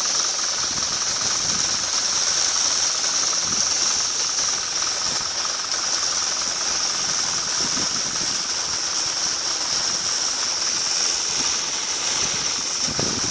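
Combine harvester running steadily, a constant machine noise with a strong high hiss.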